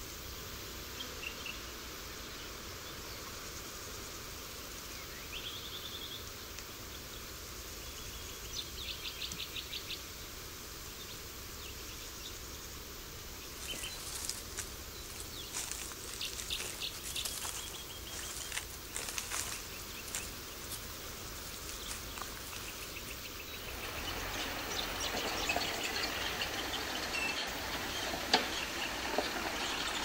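Birds chirping over a steady outdoor hiss, then from about halfway a run of crunching footsteps on dry leaves and twigs. In the last few seconds a four-wheel-drive ute drives slowly along a dirt track, growing louder.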